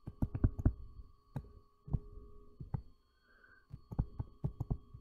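Stylus tapping and clicking on a tablet screen during handwriting, in irregular clusters of sharp taps, over a faint steady electrical hum.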